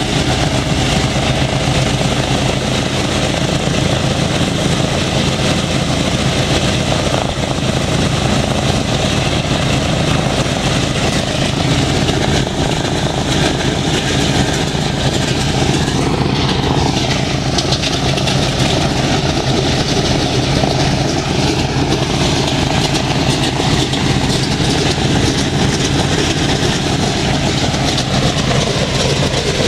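B-17 bomber's Wright R-1820 nine-cylinder radial engines running at idle during engine start-up, a steady low rumble. Around the middle, another engine starts, belching smoke, and the engine pitch shifts a little.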